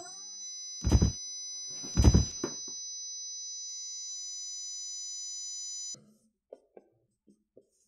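Film sound effect of a steady high-pitched ringing tone, several pure pitches held together, with two heavy low thuds about a second apart near the start. The ringing cuts off suddenly about six seconds in, leaving a few faint ticks of a marker on a whiteboard.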